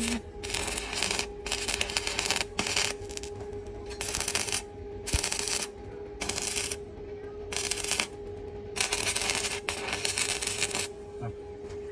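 Stick (arc) welding on galvanized steel: the electrode arc crackles and sizzles in a series of short bursts, from a fraction of a second to about two seconds, broken off and restruck between welds. A steady hum runs beneath.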